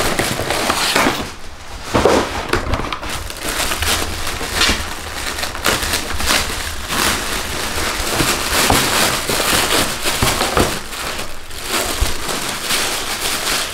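Packing paper and cardboard shoeboxes crinkling and rustling as shoes are handled and unwrapped, with many irregular sharp crackles.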